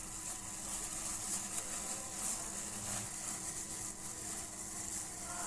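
Faint rubbing and crinkling of a plastic-gloved hand working oil and salt into flour in a glass bowl, the rubbing-in stage before water is added, over a steady hiss and low hum.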